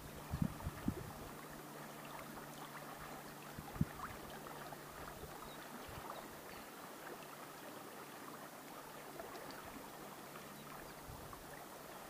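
Upper Volga river water lapping and flowing steadily against a reedy bank. A few short low thumps of wind on the microphone come in the first four seconds.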